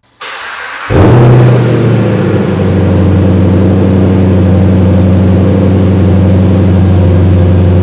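Jeep Grand Cherokee 5.7-litre HEMI V8 starting through a custom X-pipe catback exhaust. A short crank, then the engine catches about a second in with a loud flare that falls away within a couple of seconds into a steady idle.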